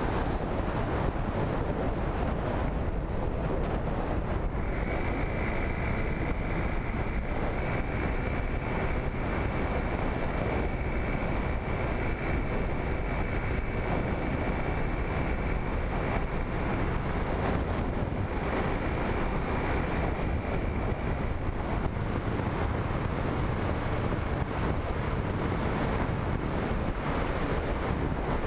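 Steady rushing wind noise on the microphone of an RC flying wing in flight, with a faint motor whine underneath that shifts in pitch and drops out for a while after the middle.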